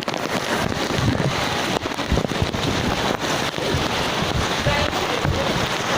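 Rain pouring down steadily, a dense hiss full of small drop clicks, with wind gusting against the microphone in uneven low rumbles.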